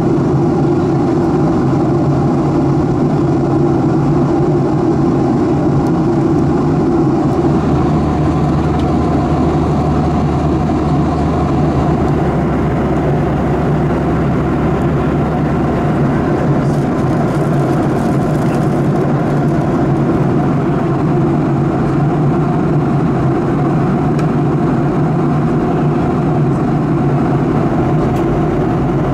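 Steady cabin drone of a Boeing 737-800 in cruise, the engines' hum and the airflow over the fuselage heard from a forward window seat. A deeper hum joins for several seconds in the first half.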